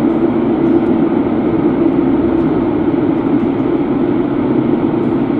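Steady road and engine noise inside a moving car's cabin, cruising at an even speed.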